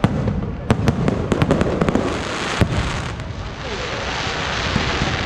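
Aerial fireworks going off: a quick run of sharp bangs and pops, giving way about three seconds in to a steady crackling hiss.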